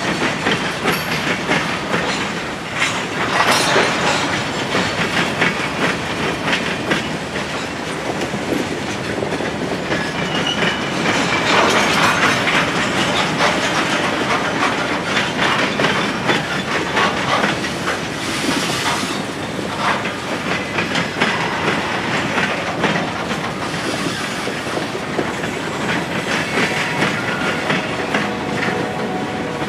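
Empty log flatcars of a freight train rolling past, their steel wheels clacking steadily over the rail joints. It swells louder a few seconds in and again about twelve seconds in.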